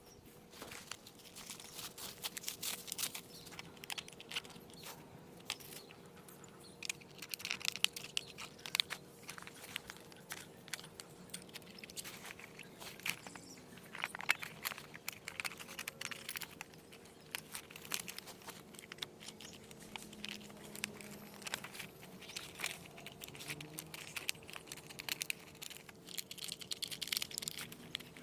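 Irregular crinkling and crackling handling noise close to the microphone, with a faint steady hum beneath.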